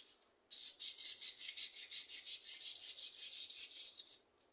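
Fine sandpaper rubbed in quick, even strokes over the fan motor's steel rotor shaft, cleaning off the grime that made the shaft stick in its bushings. It starts about half a second in and stops near the end.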